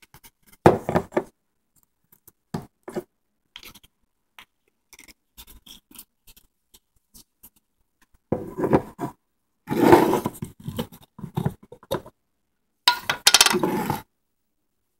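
Kitchen work noises: scattered knocks and clicks of dishes and utensils, with several louder bursts of scraping and rustling, the loudest about ten seconds in.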